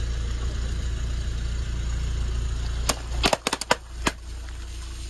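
A car idles with a low steady hum, then about three seconds in its tyre rolls over long water-filled balloons and bursts them in a quick run of about six sharp pops within a second or so.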